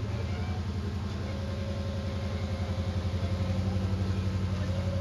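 Rock-racing buggy's engine running steadily at low revs with a fast, even pulse, getting a little louder about three seconds in.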